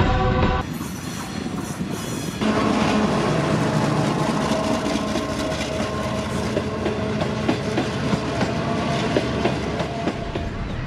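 Passenger train coaches rolling past a station platform: wheels clicking over the rail joints over a steady drone. The sound changes abruptly twice in the first few seconds, at cuts between shots.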